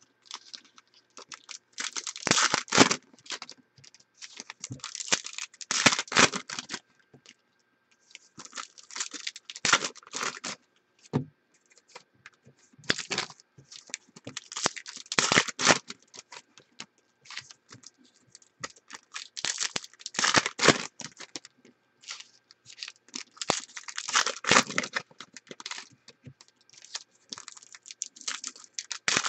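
Foil trading card pack wrappers being torn open and crinkled, over and over, a few seconds apart, with softer handling of the cards in between.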